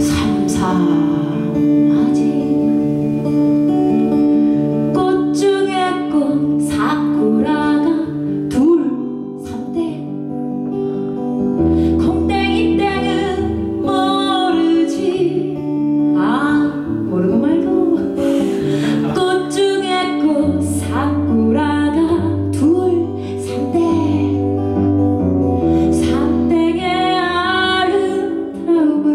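A woman singing in Korean, accompanying herself on a strummed acoustic guitar.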